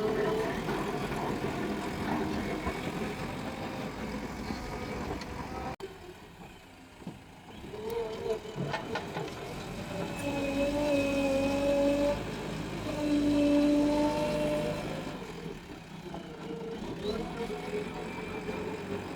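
JCB excavator's diesel engine running, rising in level twice in the second half with a held, steady pitch as it works under load. The sound breaks off abruptly about six seconds in, as at an edit, and picks up again.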